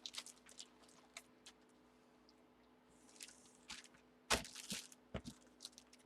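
Handling noises of trading cards and plastic card holders: scattered light clicks and a brief rustle, with two sharper knocks, one a little past four seconds in and one about a second later.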